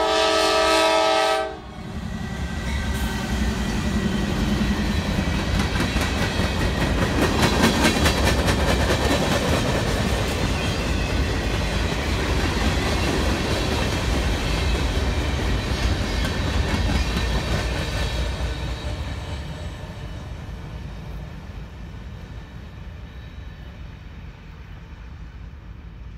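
Diesel freight train horn sounding a multi-note chord that cuts off about a second and a half in. Norfolk Southern locomotives then rumble past, followed by freight cars clattering over the rail joints. The sound fades steadily in the last several seconds as the train moves away.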